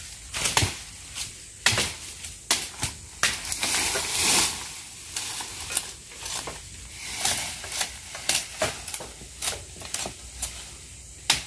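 Dry twigs and leaves crackling and snapping in irregular bursts as people push through dense brush, with a longer rustle about four seconds in.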